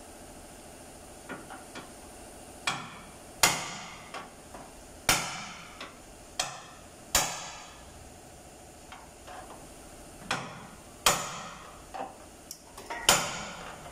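Irregular hand-hammer blows on bent steel car body or suspension parts, each strike ringing briefly, with softer taps in between, over a steady low hum.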